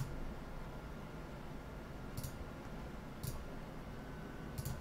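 Computer mouse clicking a few times, about a second apart, with two quick clicks close together near the end, over quiet room tone.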